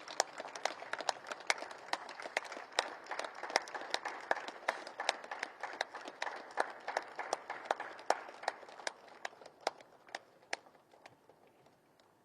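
Audience applauding, a dense patter of claps that thins out and dies away near the end.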